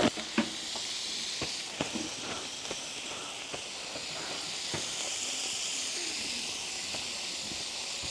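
Tandoori chicken legs sizzling on a barbecue grill: a steady hiss, with scattered sharp pops and clicks in the first few seconds.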